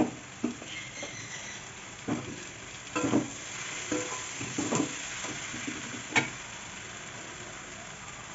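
Metal spatula scraping and knocking against a metal kadai as soaked flattened rice is stirred into frying vegetables, over a steady low sizzle. About half a dozen scrapes and knocks in the first six seconds, then mostly just the sizzle.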